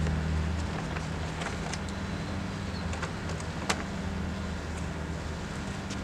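Car engine idling steadily with a low hum, with scattered light clicks and one sharper click a little past halfway.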